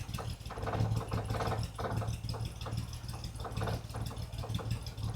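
Vauxhall Royale's 2.8-litre straight-six engine idling, with a steady low hum and a pulse that swells and fades roughly once a second. The carburettor mixture has just been set to about 1.5% CO at idle.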